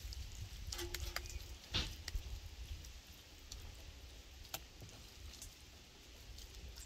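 Hands squeezing and patting raw minced meat into an elongated kebab shape: a few soft slaps and ticks.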